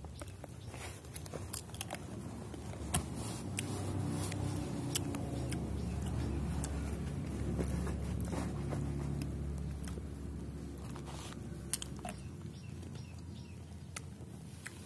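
Chewing and wet mouth clicks from a man eating mango slices. Behind them a motor vehicle's low engine hum swells a few seconds in and fades again near the end.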